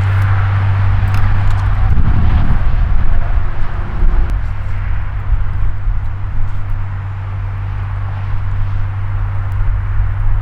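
Steady low hum of an idling engine, with a louder rumble a couple of seconds in and a few light clicks and rustles over it.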